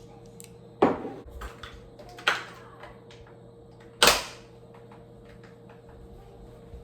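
Three sharp knocks, each dying away quickly: the first about a second in, the second a second and a half later, and the loudest about four seconds in. A steady electrical hum runs underneath.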